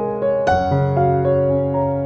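Background music: soft piano playing a gentle arpeggiated melody over a held bass note, a new note about every quarter to half second.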